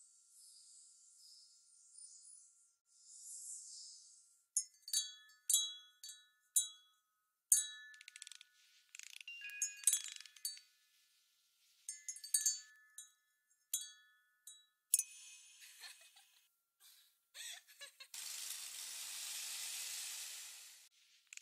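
Chimes tinkling in irregular clusters of high, ringing strikes at several fixed pitches, after a few seconds of faint high hiss. Near the end a steady rushing hiss swells for about three seconds.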